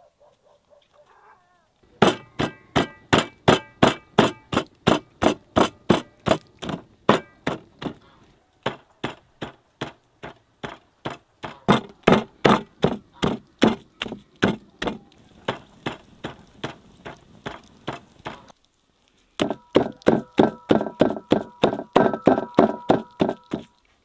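A large serrated cleaver chopping raw meat and fat on a wooden board, mincing it by hand. It strikes steadily about three times a second, with a metallic ring on some strokes, and stops briefly twice.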